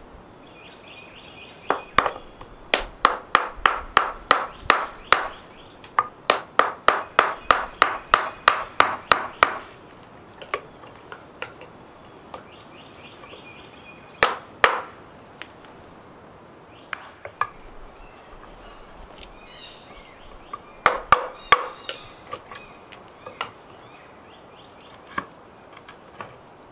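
A wooden mallet strikes a chisel driven into a wooden post in quick runs of blows, about three to four a second, with pauses between runs and a few single strikes near the end. Birds chirp in the background between the blows.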